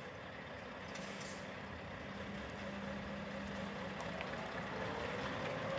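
Scania R580's V8 diesel engine running in the distance, growing gradually louder, with its pitch rising near the end as the truck moves off.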